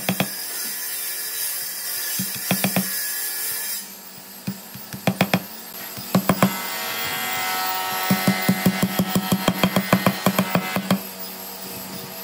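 Wood being worked by hand with a tool: a steady hiss for the first few seconds, then runs of quick, sharp strokes on the wood.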